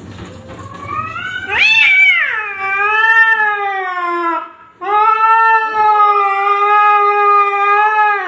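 Domestic cat caterwauling in a territorial standoff through glass: two long yowls, the first rising in pitch and then sliding down, the second held steady after a short break about four and a half seconds in.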